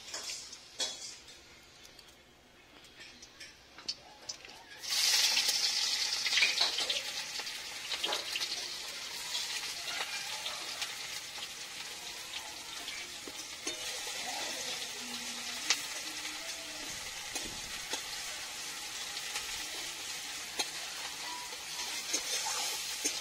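Sliced onions going into hot oil in a kadai about five seconds in, setting off a loud sizzle that keeps going as they are stirred with a long metal spatula, with scattered clinks of metal on the pan.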